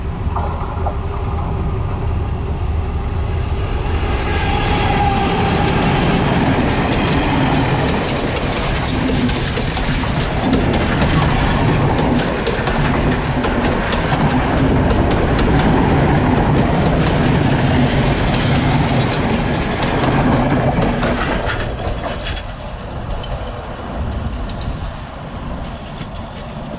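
Diesel train passing close by: engine note with wheels clicking over the rail joints. It grows louder over the first several seconds, stays loud, then fades away over the last few seconds.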